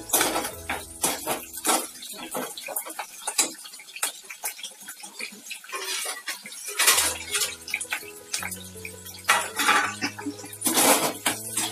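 Metal slotted spatula scraping and clinking against a metal kadai as onion pieces are stir-fried, in quick irregular strokes. Background music with sustained notes runs underneath, plainer in the second half.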